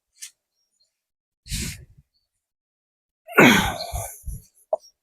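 A man's breathy exhale, then about three seconds in a loud, strained vocal exhale that falls in pitch, with a few dull thumps after it. This is the effort of heaving on a pipe-extended breaker bar to break loose a tight threaded hydraulic cylinder cap.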